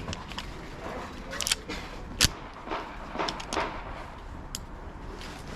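Sharp metallic clicks and clacks of a pistol being loaded and made ready: a magazine seated, the slide worked and the gun holstered. There are several separate clicks, with the loudest single clack about two seconds in.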